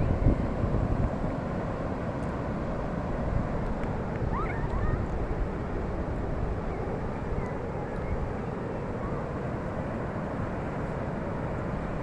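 Wind buffeting the microphone outdoors: a steady low rumbling rush, gustier in the first second. There are faint short rising squeaks about four to five seconds in.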